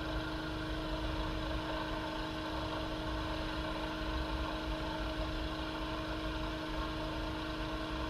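Electric motor running at a constant, steady hum with an unchanging tone.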